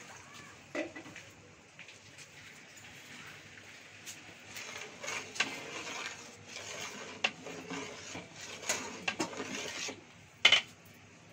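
A long metal ladle stirring thick pea-and-chickpea curry in a large metal pot, scraping and clinking against the pot's sides from a few seconds in, with a sharper clank near the end.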